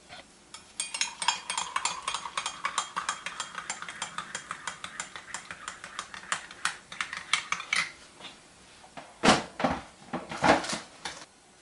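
Metal teaspoon clinking rapidly against a ceramic mug while black coffee is poured in and stirred, the pitch of the filling mug rising as it fills. The clinking stops about eight seconds in, followed by a few louder knocks near the end.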